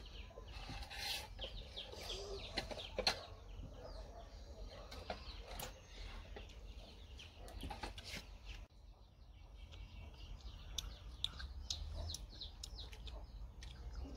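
Birds chirping and calling in many short high notes, with scattered sharp clicks and taps over a steady low hum.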